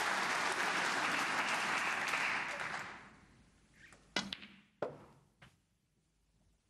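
Audience applauding, dying away about three seconds in. Then two sharp clicks of snooker balls, about half a second apart, as a shot is played.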